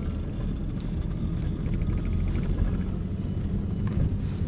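Car driving at a steady speed, engine hum and tyre and road noise heard from inside the cabin.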